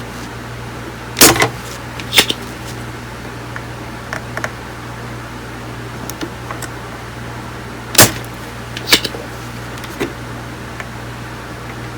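Sharp clicks and knocks of tools and parts being handled during a bench electronics repair, about five of them spread out, the loudest about a second in and near eight seconds, over a steady low hum.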